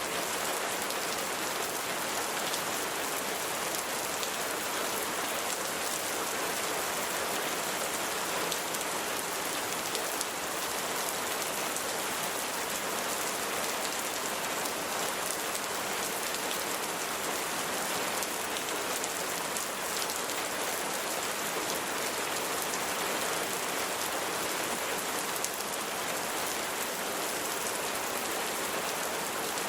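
Steady rain falling: an even hiss of countless drops with faint scattered patter, unchanging throughout.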